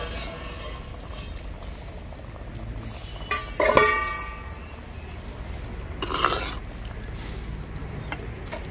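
A stainless-steel plate lid is set down on a concrete floor about three and a half seconds in, with a loud metallic clang that rings on briefly. A shorter clatter follows about six seconds in, as a steel ladle is handled at the clay pot.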